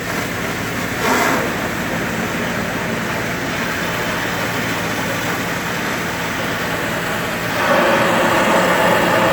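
A heavy machine's engine running steadily at the demolition, with a short burst of noise about a second in and a louder, rougher stretch from about seven and a half seconds.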